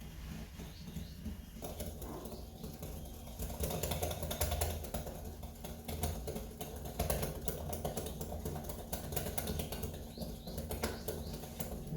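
Butter and powdered sugar being beaten by hand in a mixing bowl: a utensil clicks and scrapes against the bowl in quick, irregular strokes, starting about a second and a half in. A low steady hum runs underneath.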